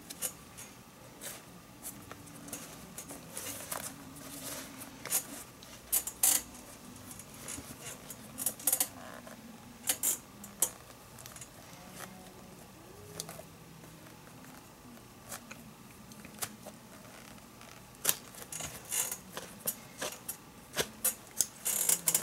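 Metal pliers clicking and clinking against the glove as old leather lace is worked out of a baseball glove's palm, in irregular sharp ticks that come thickest near the end.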